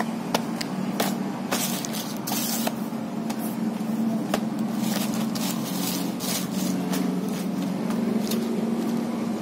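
Small cardboard boxes being handled and stacked into a pile: irregular light taps, slides and scrapes of cardboard on cardboard, over a steady low hum.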